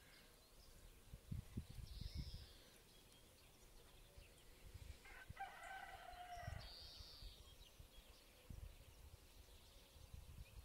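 A rooster crowing once, faint, one pitched call lasting about a second and a half midway through. Small birds give short high chirps around it, and there are a few low thumps.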